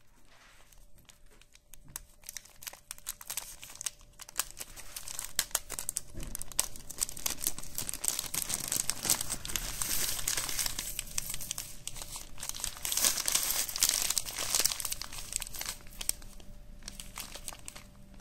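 Clear plastic bag crinkling as it is opened and handled, with small metal fishing swivels clicking and clinking as they spill into a hand; loudest in the middle and easing off near the end.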